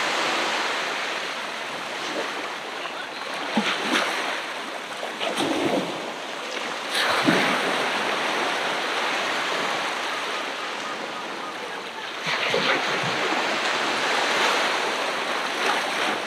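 Ocean surf on a beach: a steady rush of waves, with three louder breaks a few seconds apart.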